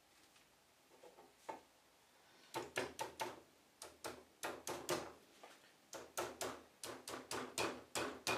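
Small steel cap screws clinking against the lathe's metal ways as they are handled and set in the bolt holes. A series of irregular sharp clicks and knocks, about two to three a second, starts a couple of seconds in.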